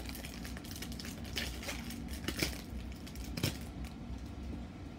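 Scattered crinkles and light clicks of trading cards and foil booster-pack wrappers being handled, over a steady low machine hum.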